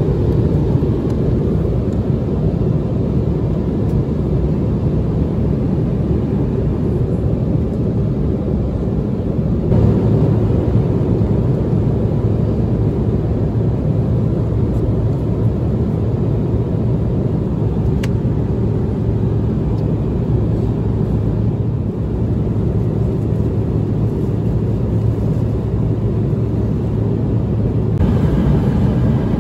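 Steady cabin noise of an Embraer E175 airliner in flight, heard from a passenger seat: the even rumble of airflow and its turbofan engines, with a steady low hum underneath.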